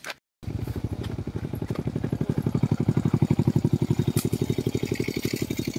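A small engine running steadily with a fast, even throb, starting about half a second in after a brief gap.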